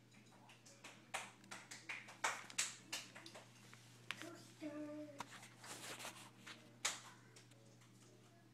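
Irregular sharp clicks and knocks, with a toddler's short vocal sound about four and a half seconds in, over a steady low hum.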